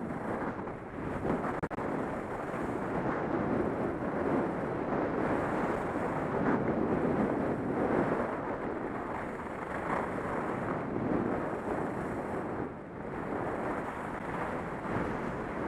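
Wind rushing over a helmet camera's microphone and skis sliding on groomed snow during a downhill run: a steady rushing noise that rises and falls in level.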